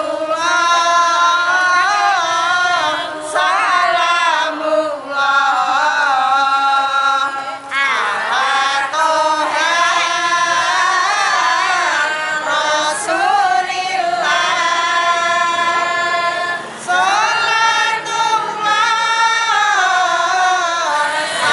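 Voices, women's prominent, singing sholawat, the Islamic devotional chant in praise of the Prophet Muhammad, together on one melodic line in long, drawn-out phrases with short breaks between them.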